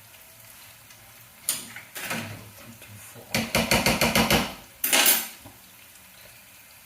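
Kitchen utensils knocking and clattering against pots and pans: a few separate knocks, then a fast run of sharp knocks lasting about a second, then one more clatter.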